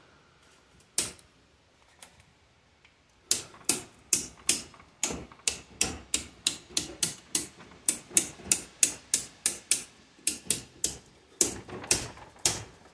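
Circuit breakers in an Eaton household breaker panel being snapped off one after another: a single click about a second in, then a quick run of sharp clicks, about two or three a second, from about three seconds in. The branch circuits are being switched off as the first step before feeding the house from a generator.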